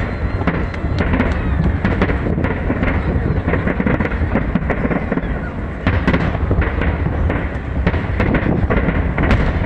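Fireworks display with aerial shells bursting one after another: repeated sharp bangs and crackles over a continuous low rumble.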